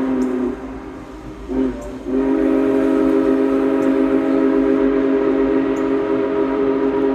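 Union Pacific 4014 Big Boy's chime steam whistle blowing for a crossing. A long blast breaks off about half a second in, a short blast follows around a second and a half in, then a long steady blast.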